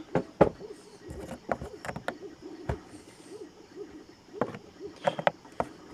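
Irregular sharp clicks and snaps of a knife cutting and breaking 3D-printed ABS plastic parts apart. A faint low wavering whir runs steadily underneath.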